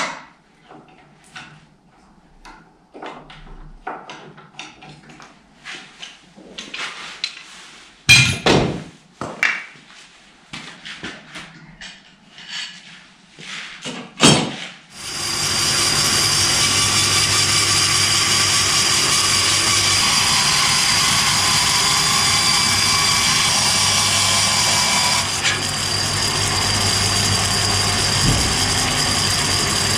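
Scattered knocks and clatter of woodworking tools being handled, with two louder knocks, then about halfway through an electric power tool starts and runs steadily at full speed.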